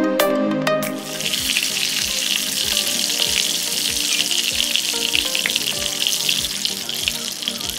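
Vegetable oil sizzling and crackling steadily as kefir-dough pirozhki fry in a pan. A music track cuts off about a second in.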